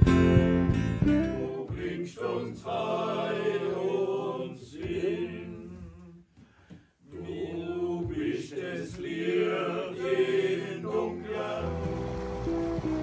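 Several voices singing a Christmas song together over plucked strings. The singing breaks off briefly about halfway through, then resumes. Near the end, rushing water from a weir comes in under it.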